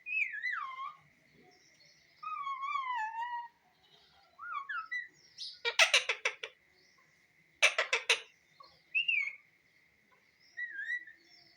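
Parrot whistling, with notes that glide down and waver, then two short bursts of harsh, rapid squawks about six and eight seconds in, followed by a few brief whistles.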